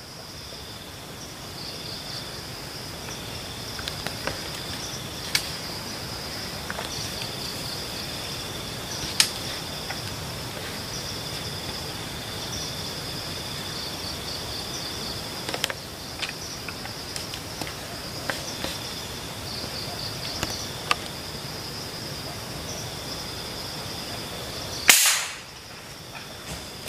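Steady high buzzing of forest insects with a few small clicks and snaps, then near the end a single sharp shot from a scoped hunting rifle.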